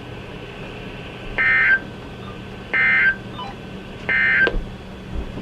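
Three short bursts of NOAA Weather Radio SAME digital data tones, about a second and a half apart, over a steady low hum. This is the end-of-message code that closes a severe thunderstorm warning.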